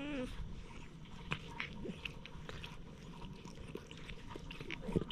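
A hand stroking a cat's fur close to the microphone, heard as soft scattered clicks and rustling, with a short wavering vocal sound at the very start and another just before the end.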